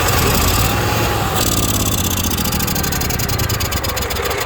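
Onan 5500 motorhome generator engine turning over on its starter in a start attempt, with a fast even beat. It eases off near the end as the engine fails to keep running.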